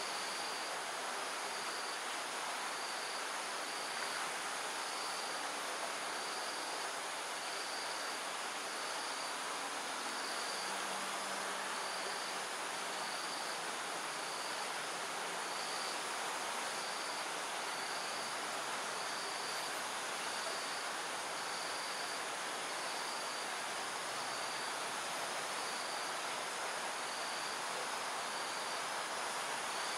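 Evening insect ambience: a steady hiss with a short, high insect chirp repeating about once a second. A faint low hum joins from about ten seconds in. No owl call stands out.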